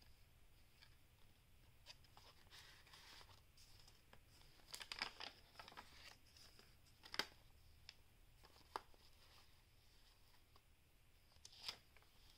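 Faint rustling and crinkling of paper and card pages as a junk journal is leafed through by hand. A few sharp little ticks and taps come from the pages and tucked-in cards, the loudest about seven seconds in.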